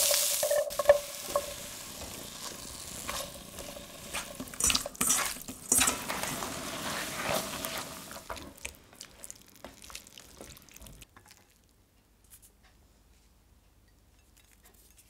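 Vegetables sizzling in a stainless steel sauté pan while being stirred and tossed, with irregular clicks and knocks of a spatula against the pan. The sound dies away to near silence over the last few seconds.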